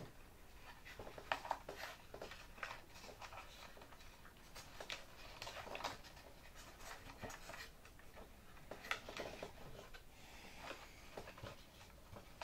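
Faint scratchy rustling and light taps as a foam pad is pushed down into the bottom of a model airplane's fuselage.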